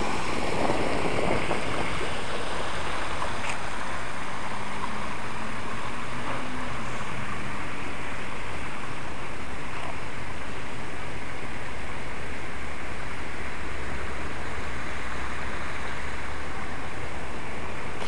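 Outdoor water fountain: a steady rush of splashing, falling water.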